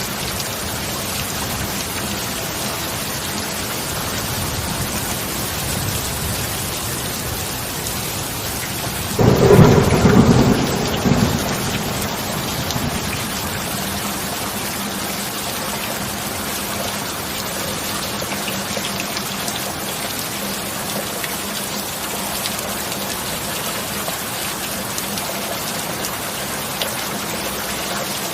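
Steady heavy rain, with a single thunderclap about a third of the way in that breaks sharply and rumbles for a few seconds before fading back under the rain.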